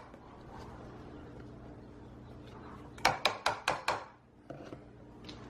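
About three seconds in, a quick run of about six sharp knocks, a spoon tapping against a dish, over a low steady hum.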